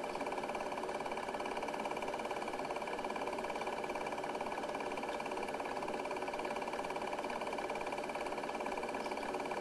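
Film projector running: a steady whirr with a fast, even clatter that does not change.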